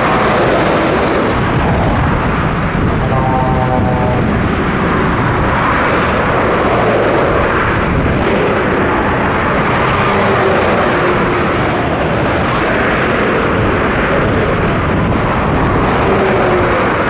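Dense motorway traffic: Scania trucks pulling tank-container trailers, with cars, passing close at speed. The tyres and diesel engines make a steady roar that swells as each vehicle goes by.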